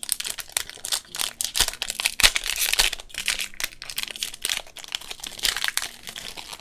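Foil wrapper of a Pokémon booster pack crinkling and tearing as it is opened by hand: a dense, irregular crackle of sharp crinkles, heaviest about two to three seconds in and again near the end.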